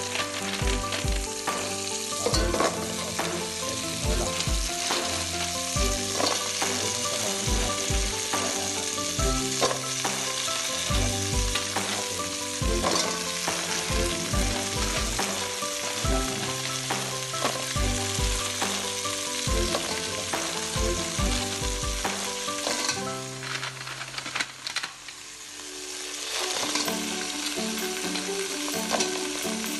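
Shellfish in their shells cooking in a pot on a stove burner, giving a steady sizzling hiss, under background music with a regular beat that drops out for a few seconds near the end.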